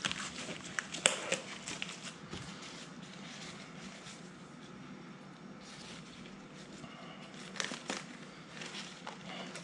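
Disposable kitchen gloves being pulled onto the hands: crinkling and rustling with short crackles, busiest in the first two seconds and again near the end, quieter in between.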